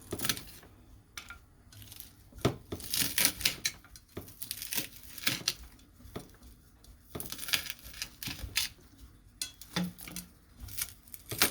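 Kitchen knife cutting food on a cutting board: irregular knocks and clicks of the blade striking the board.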